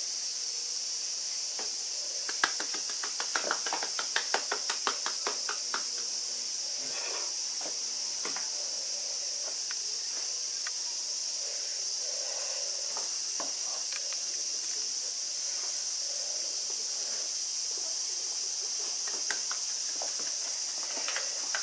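A quick run of about a dozen sharp taps, made by hand, a couple of seconds in, with a few more near the end, over a steady high-pitched hiss.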